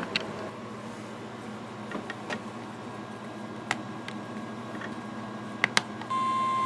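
Steady low hiss with a few faint clicks, then about six seconds in a loud, steady weather-radio alert tone near 1 kHz starts, the alarm that comes before a warning broadcast.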